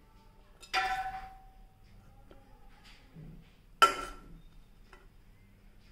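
An aluminium drink can handled twice, about three seconds apart, each time a sharp clink with a short metallic ring, the second louder.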